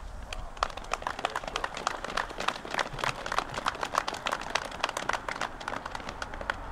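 Small crowd applauding: many separate hand claps that start just after the beginning and thin out near the end.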